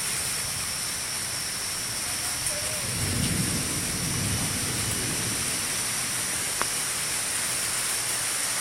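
Steady hiss of rain during a thunderstorm, with a low rumble of thunder swelling about three seconds in and fading away by about five seconds.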